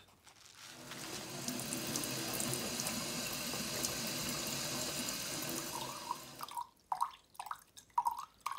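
Tap running a steady stream of water into a plastic bottle, then, near the end, water glugging in quick pulses as it is poured from the bottle's neck into a glass jar.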